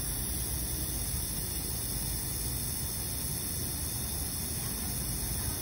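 SABALON 420 mL aerosol hair spray can spraying continuously with a steady hiss, its nozzle held down in a test of how long the spray lasts. A steady low rumble runs underneath.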